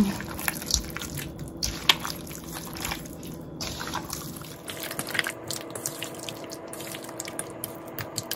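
Wet squelching and smacking of a bare hand kneading chicken pieces into yogurt and spices in a stainless steel bowl, in irregular short bursts.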